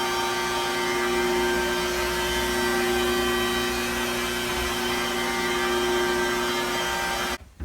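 Electric glass polisher with a soft buffing pad running steadily against shower-door glass, working cerium oxide compound to break down hard water scale; a constant motor whine over a hiss, cutting off suddenly near the end.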